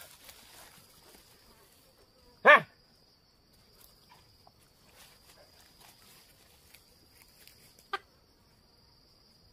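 Steady high insect drone, with one short, loud, clear-pitched animal call about two and a half seconds in and a brief sharp call near the end.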